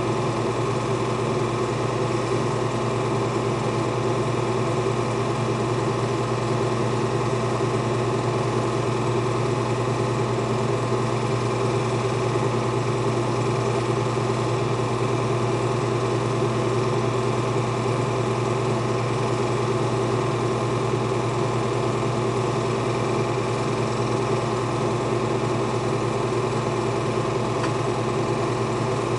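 Film projector running: a steady, unchanging whirring hum.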